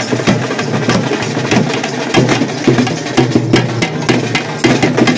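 Thappattam frame drums beaten with sticks in a fast, steady rhythm.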